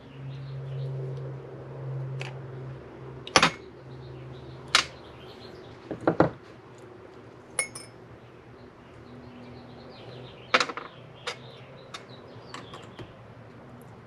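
Small metal clicks and clinks of pliers and carburetor parts from a Toro 2-cycle engine being handled on a workbench: scattered sharp taps, the loudest about three and a half, five and six seconds in. A low steady hum runs under the first four seconds or so.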